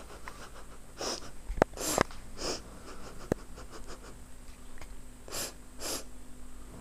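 Cockatiel making short breathy, hiss-like bursts, about five of them, with a few sharp clicks in between, over a faint steady hum.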